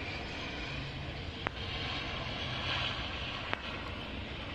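Distant ATR turboprop airliner rolling out on the runway just after touchdown, its engines and propellers heard as a steady noise. Two sharp clicks come through, about a second and a half in and again near three and a half seconds.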